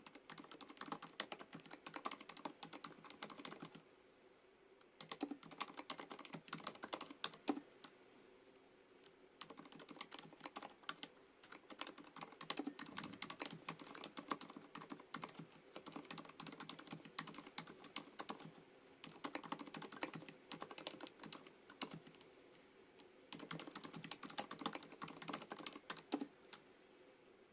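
Typing on a FILCO Majestouch MINILA-R Convertible mechanical keyboard with Cherry MX Silent switches: rapid keystrokes in bursts of a few seconds, broken by short pauses.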